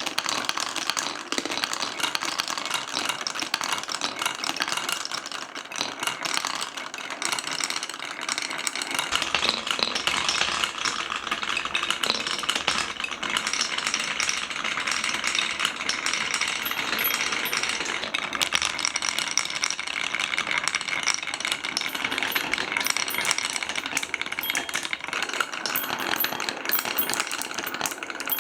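Many glass marbles rolling and clattering down wooden marble-run tracks, a dense, continuous rattle of small clicks.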